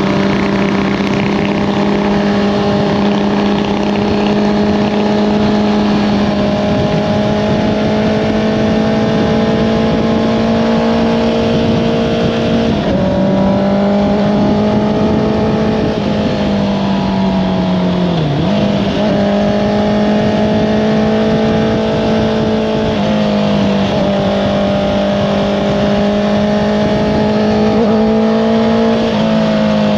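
Honda CBR650R's inline-four engine through an Akrapovič exhaust, held at a steady high note under riding load. The pitch shifts in small steps several times, and once, past the middle, it dips sharply and climbs back as the throttle is rolled off and opened again.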